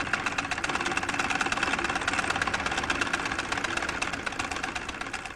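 Treadle-driven sewing machine running at speed, its needle and shuttle mechanism making a rapid, steady clatter that stops abruptly at the end.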